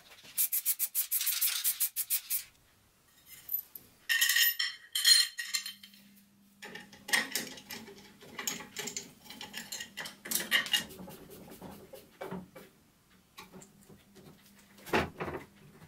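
A rapid rattle of shaking for the first couple of seconds, then a few bright metallic clinks. After that come scattered knocks and clicks of metal and plastic parts being handled and fitted together on a DIY electric chainsaw, plugs being pushed into connectors, over a low steady hum.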